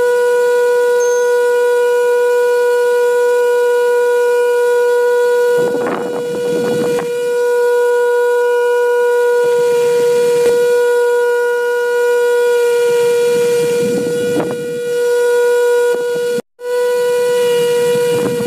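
Small electric motor running with a steady high-pitched whine, with a rushing noise rising and fading about every four seconds. The sound cuts out for a moment near the end.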